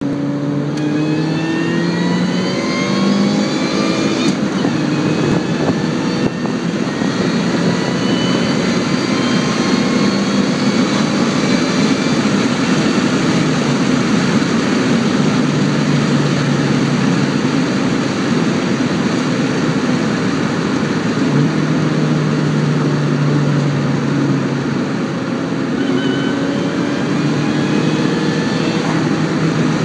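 Supercharged four-cylinder of a 2004 Saturn Ion Red Line, heard from inside the cabin, pulling hard. The engine note and supercharger whine rise in pitch through the first four seconds, break at a gear change about four seconds in and again around six, then run steadily under road noise. The pitch climbs again near the end.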